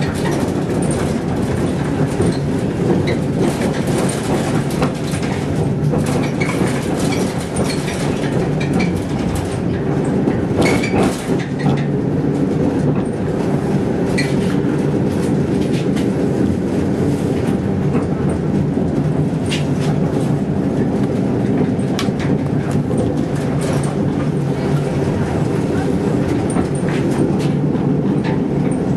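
Helsinki city tram running along snowy street track, heard from inside the car as a steady rumble. Occasional clicks and knocks come from the wheels passing over rail joints and track crossings.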